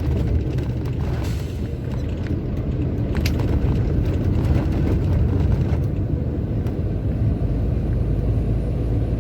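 Truck cab interior on the move: steady low rumble of the diesel engine and road noise, with a few faint ticks.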